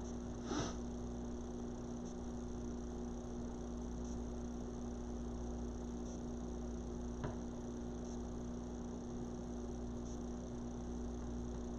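Steady electrical hum over faint background hiss, with a soft click about half a second in and another about seven seconds in.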